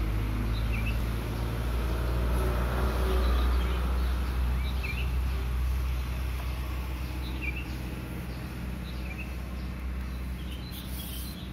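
Outdoor ambience: a low rumble that swells a few seconds in and then eases off, with a small bird giving short, high chirps every second or two.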